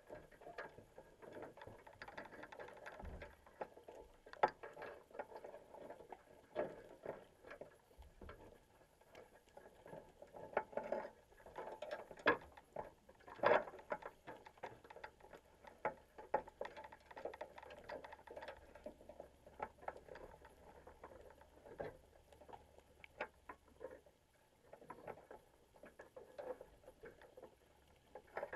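Irregular underwater clicking and ticking inside a wire crab pot, as crabs work at the bait cage and wire mesh, heard muffled through the camera's waterproof housing. The clicks come at uneven intervals, some much sharper than others.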